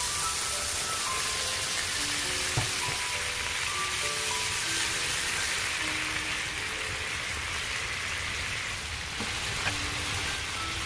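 Beef striploin steaks sizzling in a hot frying pan, with liquid boiling off in steam around the meat; the sizzle grows stronger about halfway through. A few faint clicks come through, over quiet background music.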